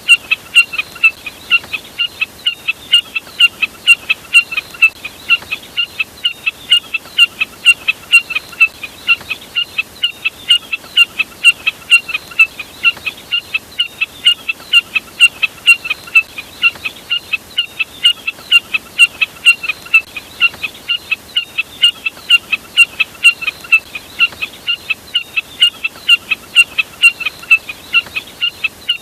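Jack snipe calling in an unbroken series of short, sharp, high notes, about three a second, without a pause.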